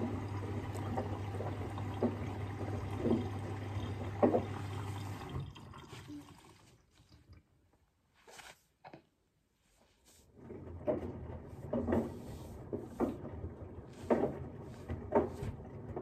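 Washing machine drum tumbling a wash load: a steady low hum with water sloshing and a soft thump about once a second. About five seconds in it winds down and goes nearly silent for a few seconds, then starts tumbling again at the same pace.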